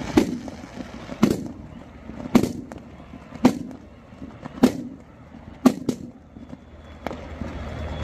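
Slow, steady drum hits from a marching band, about one a second, each ringing out across the stadium, with a quick double hit near six seconds in.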